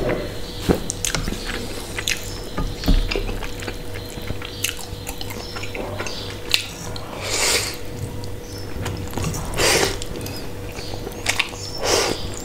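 Close-up eating sounds: spicy instant noodles slurped in three long slurps, the last near the end, with wet chewing and small clicks between them. A faint steady hum runs underneath.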